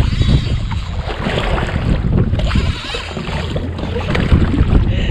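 Wind buffeting the microphone in a heavy low rumble, over the wash of choppy sea water around a kayak.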